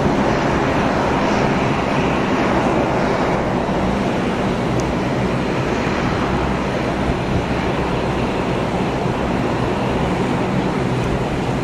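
Steady distant jet roar of an Airbus A300-600F freighter's two turbofan engines on final approach, gear down.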